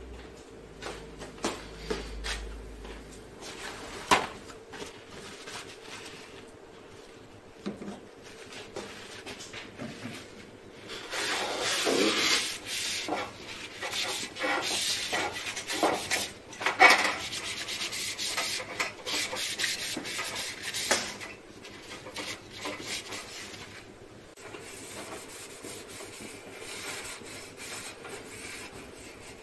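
A white wipe rubbed and scraped by hand along the sheet-metal panels and guides around the fuser roller inside a Xerox 6204 wide-format printer, cleaning off toner grime. Scattered knocks and clicks, with a long stretch of steady rubbing through the middle, loudest in the middle.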